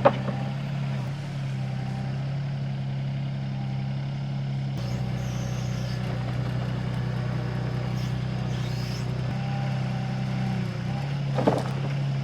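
SANY SY26U mini excavator's diesel engine running steadily, with a sharp knock right at the start and another near the end as logs are handled.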